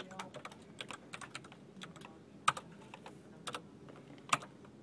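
Computer keyboard typed on in quick, irregular keystrokes, with two sharper, louder clacks about two and a half and four and a half seconds in.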